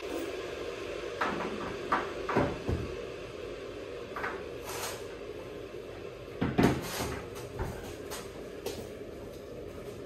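A kitchen cupboard door being handled and moved against the base units: scattered knocks and clatters, the loudest about six and a half seconds in.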